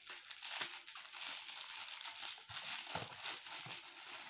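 Plastic bubble-wrap packaging crinkling and crackling steadily as it is handled inside a cardboard box.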